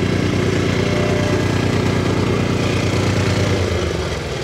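Simulated diesel engine sound from a radio-controlled model's sound unit, running steadily, then dropping in pitch and fading about three and a half seconds in.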